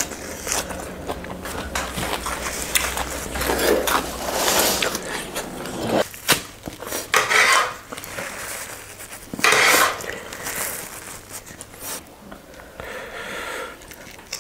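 Close-up eating sounds: chewing of roast chicken and vegetables, with scattered clicks and clinks as food is picked off the serving tray by hand, and a few louder noisy chewing bursts.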